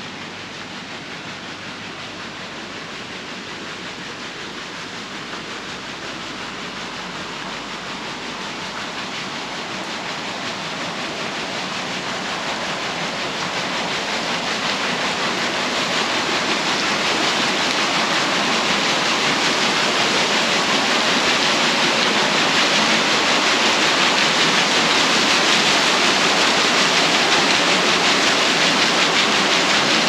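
Rushing water of a mountain waterfall, the Pochtenfall, a steady roar of falling water that grows louder over the first half or so and then holds steady.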